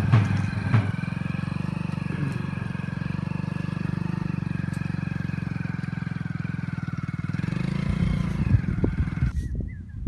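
Small motorcycle engine running steadily as the bike rides off over sand, with an even pulsing note; it gets louder and rougher near the end, then cuts off abruptly.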